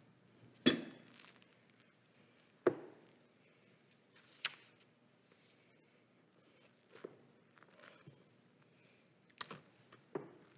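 A handful of separate knocks and clicks in a quiet room, the loudest about a second in, with a short ring-out after the biggest ones.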